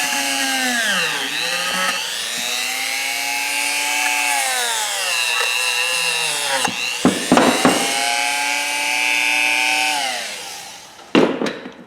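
Electric power tool motor running while it cleans rust off steel pliers, its pitch dipping several times as the work is pressed against it, then winding down near the end. A few sharp knocks around the middle and again as it stops.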